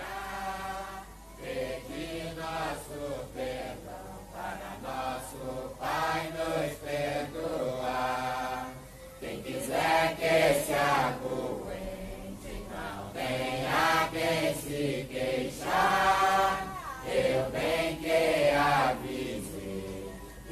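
A group of worshippers singing a Santo Daime hymn together, a chant-like melody in held notes and phrases with short breaks between them.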